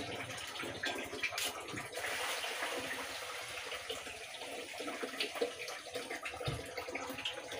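Water running steadily, filling a container.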